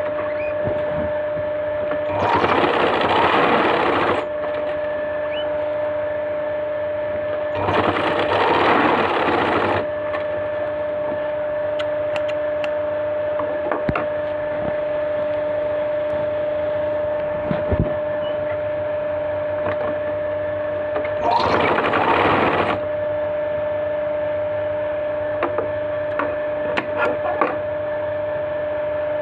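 Straight-stitch sewing machine stitching cloth in three short runs, each about two seconds long, with pauses between them. A steady hum runs underneath throughout.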